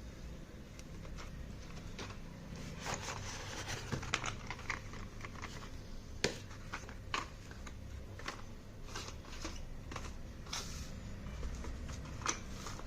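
Parcel packaging being handled and opened by hand: plastic crinkling and tearing with irregular sharp clicks and taps throughout, the loudest about six seconds in and near the end.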